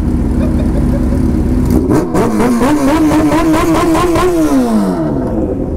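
Motorcycle engine running while riding, over a steady low rumble; about two seconds in it revs up, climbing in pitch, then falls away again near the end as the throttle eases off.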